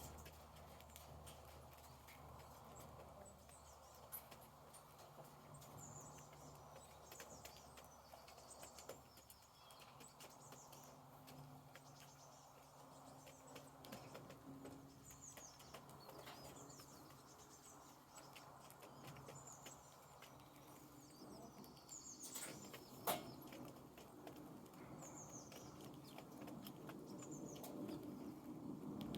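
Faint chirping of small birds with scattered light taps and clicks, and one sharper click about 23 seconds in.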